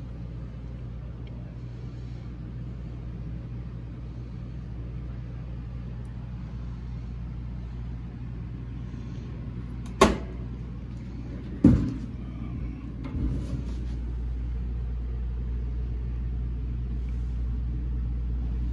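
Steady low mechanical hum of machinery aboard a boat, growing a little louder in the second half, with two sharp knocks about ten and twelve seconds in and a softer one just after.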